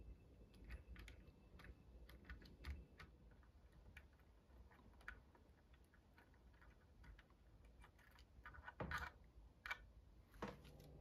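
Faint, irregular small clicks and taps of hands handling solder wire, a soldering iron and the pots and switch on a guitar pickguard, with a few louder clicks near the end. A low steady hum comes in about ten seconds in.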